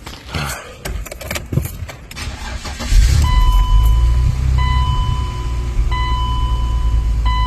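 Keys rattle, then a BMW E53 X5 engine cranks briefly and catches about three seconds in. It settles into a steady low idle, running on its newly replaced fuel pump. Over it, a warning tone from the car beeps in repeated long pulses about every second and a half.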